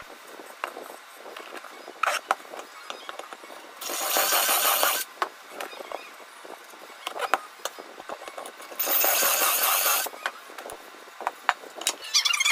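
Cordless drill running in two short bursts of about a second each, working into a pine board held in a clamp jig, with light knocks and handling clicks between. Near the end, wooden slats knock together as they are gathered up.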